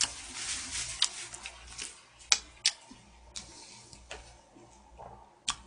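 Close-miked eating sounds: chewing a mouthful of rice, then a few sharp clicks of chopsticks and spoon against the bowls, two close together a little past halfway and one more near the end.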